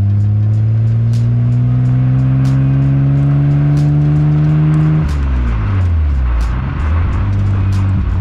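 Nissan R34 Skyline GT-R's twin-turbo RB26DETT straight-six through a new full-titanium Midori Seibi exhaust, heard at the tailpipe while driving. The revs climb steadily for about five seconds, then drop suddenly and wind down for about two seconds before settling to a steady cruise near the end.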